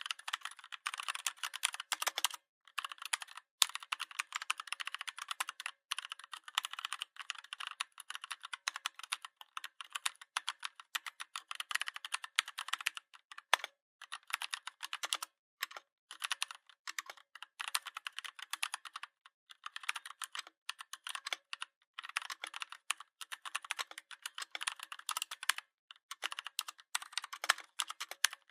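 Fast typing on a Redragon 61-key mechanical keyboard: rapid runs of key clicks broken by short pauses.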